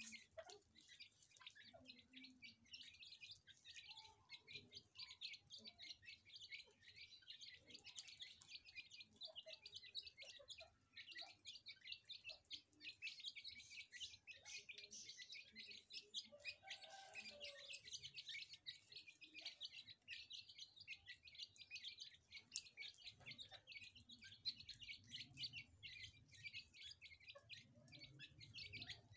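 A brood of francolin (teetar) chicks peeping while they feed, many short high cheeps overlapping in a continuous chatter.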